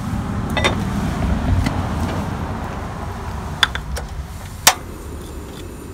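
Rummaging through a camp storage box: rustling with a few sharp clicks and knocks, the loudest a single sharp click near the end, over a low steady rumble.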